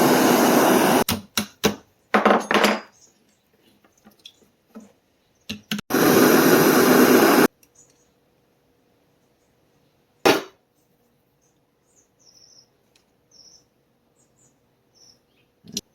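Jewelry-making tool work at the bench: three loud bursts of rushing noise, the longest about a second and a half, with sharp clicks and knocks between them, then a faint steady hum.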